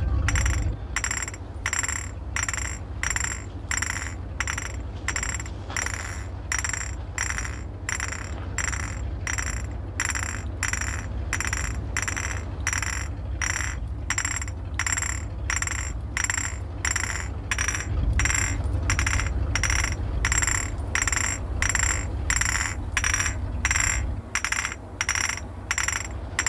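Glass bottles clinked together in a steady rhythm, about one and a half to two clinks a second, each with a bright ringing tone, over a low steady hum.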